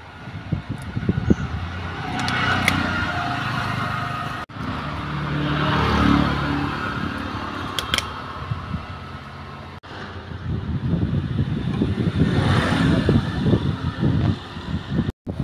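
Outdoor rumble of motor vehicle engines passing nearby, swelling and fading a few times, with brief breaks in the sound.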